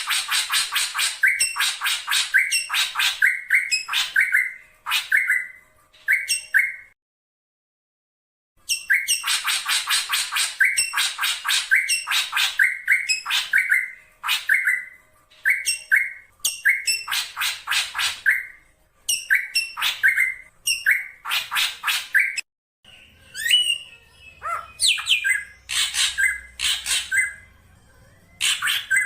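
Black drongo calling: rapid runs of harsh, sharp repeated notes in bursts of several seconds, with a brief break about a quarter of the way in. Near the end the calls come more spaced, over a faint low hum. This is a lure recording, said to be a female calling the male.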